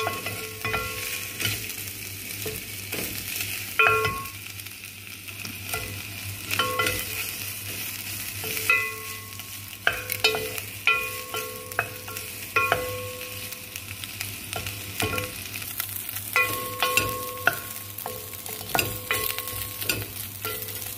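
Chicken pieces sizzling in oil in a nonstick pot while a wooden spoon stirs them, knocking and scraping against the pan again and again.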